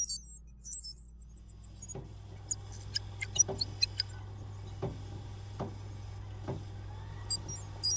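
Cartoon sound effects: quick runs of high electronic chirps and bleeps over a steady low hum, with a few soft knocks.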